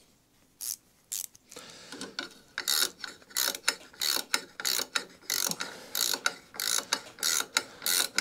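Hand ratchet wrench clicking in a steady rhythm of short strokes as it tightens the 10 mm nut holding the mower's big drive pulley, starting about a second and a half in.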